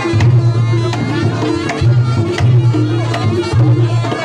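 Reog Ponorogo gamelan accompaniment: kendang hand-drum strokes over long held low tones that repeat in a steady pattern, with a wavering higher melody line above.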